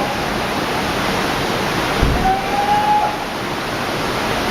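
Tsunami floodwater rushing and churning: a steady, loud noise of moving water. A brief low thump comes about two seconds in, followed by a faint, slightly rising high tone.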